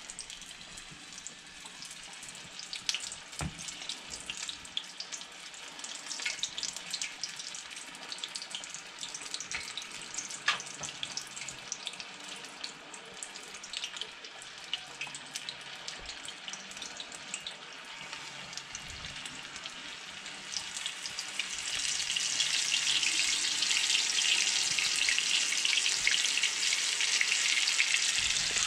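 Flour-dredged burbot chunks deep-frying in oil in a cast iron skillet: a steady sizzle with scattered crackles. About three quarters of the way through the sizzle grows markedly louder and stays up as more pieces go into the oil.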